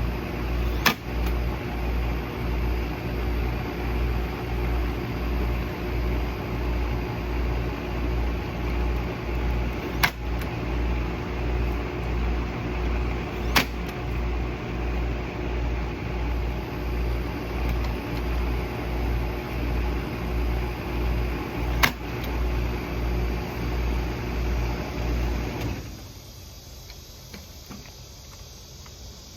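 A machine motor running steadily with a regular low throb, cutting off about 26 seconds in. Four sharp clicks sound over it.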